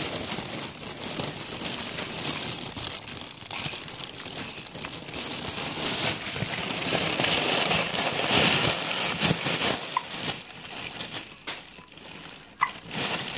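Continuous crinkling and rustling of something being handled, full of small crackles and loudest a little past the middle, with two brief squeaks in the last few seconds.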